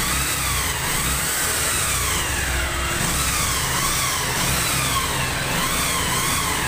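Bajaj Pulsar 150's single-cylinder four-stroke engine running and being revved repeatedly, its pitch rising and falling about once a second.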